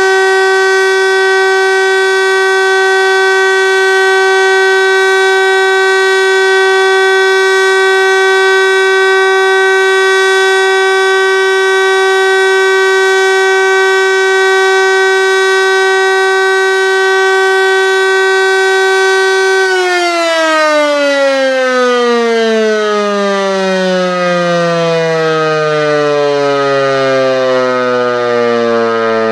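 Landert MSL-3 motor siren sounding a loud steady tone on one held pitch; about twenty seconds in, the motor is switched off and the pitch falls steadily as the rotor spins down.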